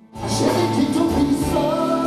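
Live pop-rock band music that starts abruptly after a split second of quiet, with a singer's voice coming in over it about a second in.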